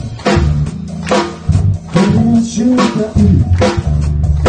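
Live rock band playing: electric guitars over a drum kit keeping a steady beat.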